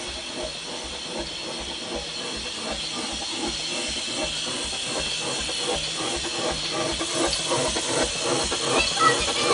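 Atlas Engine Works side-crank steam engine running, steam hissing out of its exhaust pipe with a regular exhaust beat that grows a little louder toward the end.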